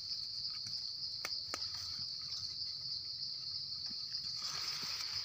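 Steady high-pitched insect chorus droning without a break. A few light clicks, and a soft rustle near the end, come from a mushroom being plucked out of the dry leaf litter.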